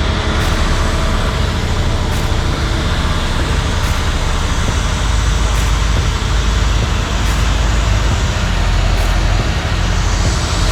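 Heavy engine of concrete-pour machinery running steadily, a deep, even drone.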